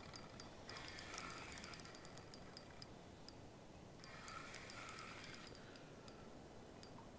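Faint whirring and ticking of a spinning reel wound in two short spells with a pause between, bringing in a heavy stingray foul-hooked by the tail a few inches at a time. A low, steady outdoor hiss lies underneath.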